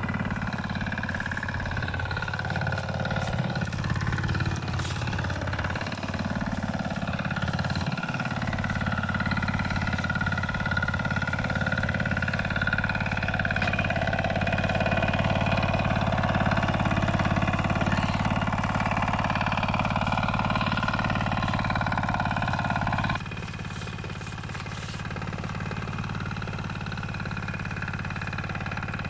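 Walk-behind power tiller's engine running steadily as it tills between the bushes. Near the end it suddenly gets quieter.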